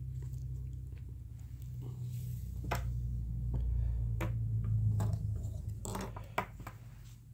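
A low steady rumble with a few light knocks and clicks as a braided paracord sling and a plastic lighter are handled and set down on a wooden table.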